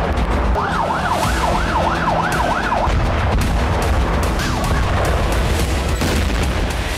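Emergency vehicle siren wailing in a fast rise-and-fall, about three cycles a second, for a couple of seconds, then briefly and more faintly again, over a low rumble.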